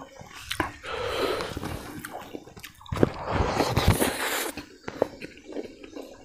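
Close-miked eating by hand: wet mouth smacking and chewing as a handful of rice and pork fry goes into the mouth, with many small clicks and two longer noisy stretches of sucking and breathing.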